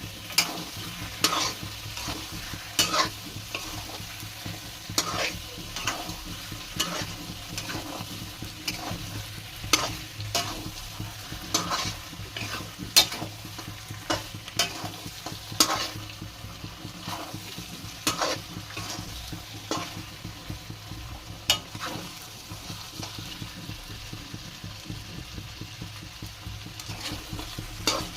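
Chicken curry frying and sizzling in a pan while a spatula stirs it, scraping and knocking against the pan in irregular strokes.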